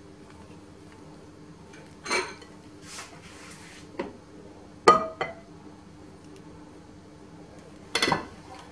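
Half a dozen clinks and knocks of a spatula and a small saucepan against a glass mixing bowl, each ringing briefly, the loudest about five seconds in, while whipped cream is folded into a mixture.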